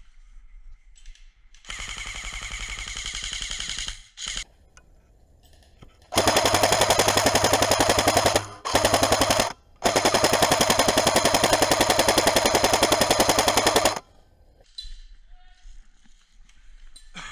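G&G CM15 airsoft electric rifle firing full-auto in rapid-clicking bursts: a quieter burst of about two seconds and a short one, then three loud bursts with brief gaps, the last running about four seconds.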